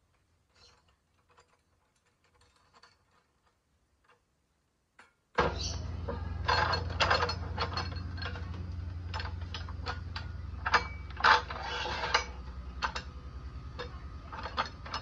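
Metal clanks, clicks and scrapes as a square steel tube is shifted and clamped at an angle in a cut-off saw's vise. The first five seconds hold only a few faint ticks. About five seconds in a steady low hum comes in and runs on under the clanks.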